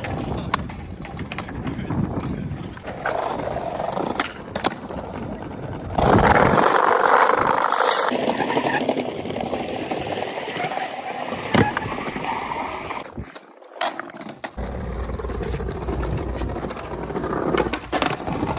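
Skateboard wheels rolling on concrete, with repeated sharp clacks of the board popping and landing. The background changes abruptly several times, as between separate clips.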